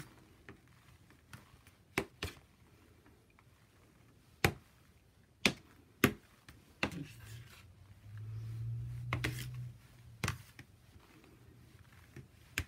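Irregular clicks and taps of a spreading tool knocking against a tray as shaving cream is smoothed flat, with a low hum for a few seconds in the middle.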